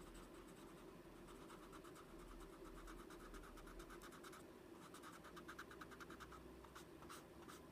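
Faint, quick scratchy strokes of a paper blending stump rubbed back and forth over coloured pencil on card stock, blending the shading, in short runs of several strokes a second.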